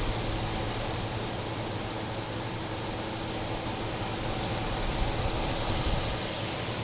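1978-79 GE Sahara 14-pint dehumidifier running steadily: its fan blows with a steady rush over a low hum from its Aspera compressor, a Tecumseh AE twin. It runs quietly, fully charged and working properly.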